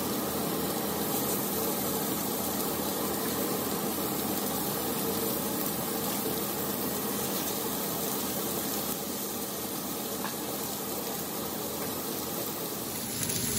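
Beef burger patties sizzling steadily on a hot ridged griddle pan and frying pan over gas burners.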